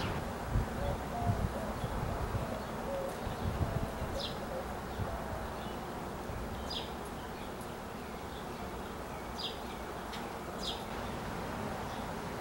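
Outdoor backyard ambience: a steady low hum of background noise with a few short, high bird chirps spread through, and some low rumbles in the first few seconds.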